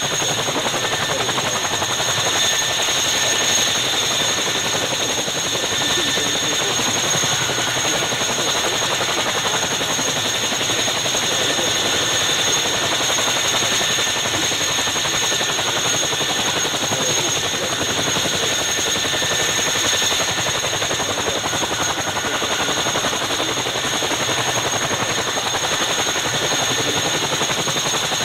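Boeing Chinook HC6 tandem-rotor helicopter running on the ground: a steady, even rush of rotor and engine noise with a constant high turbine whine.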